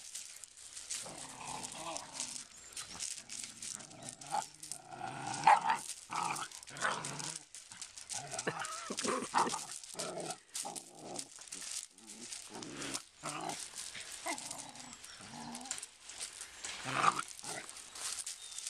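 Puppies play-growling as they wrestle, in short rough bouts throughout, with louder outbursts about five seconds in and near the end.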